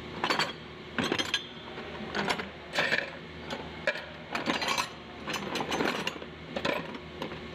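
Small metal parts clinking and knocking together in a dozen or so irregular light clicks: welding contact tips being handled.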